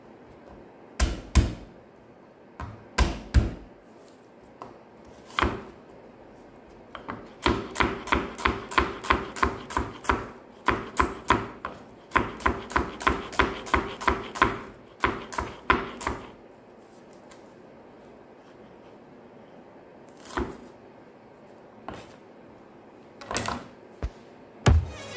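Knife chopping shallots on a wooden cutting board: a few scattered knocks at first, then a steady run of quick chops, about three a second, for some eight seconds, and a few more knocks near the end.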